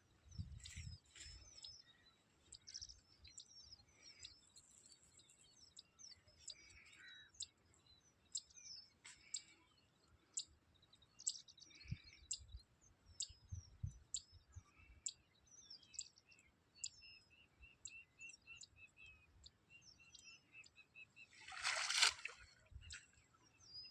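Small birds chirping and calling, with short high chirps scattered throughout and a run of quick, evenly repeated notes, about four a second, in the middle. Near the end comes one brief, louder rush of noise.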